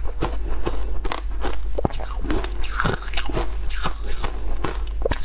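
Shaved ice in passion fruit syrup crunched and chewed close to a clip-on microphone, a quick, irregular run of crisp crackling bites.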